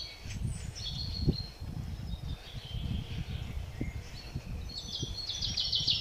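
Songbirds singing from the woods, with a quick trilling run of high notes near the end, over a low, uneven rumble of wind on the microphone.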